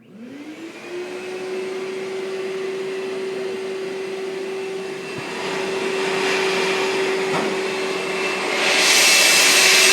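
Vacuum motor of a vacuum-forming setup switching on and spinning up to a steady whine within about a second, with a loud rush of air as it pulls a heated plastic sheet down over a helmet mould. Near the end the air rush grows louder and hissier.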